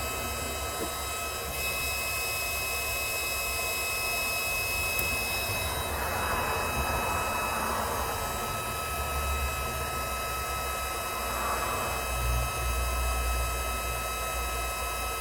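A steady rushing roar of a gas torch flame heating a rusted, stuck timing cover bolt to break it free, with a low rumble that grows stronger in the second half.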